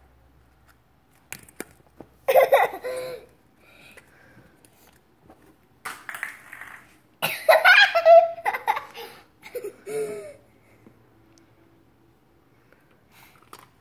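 Laughter in two loud bursts, about two seconds in and again from about seven to nine seconds in, with shorter bouts of laughing between and after. A couple of faint clicks come just before the first burst.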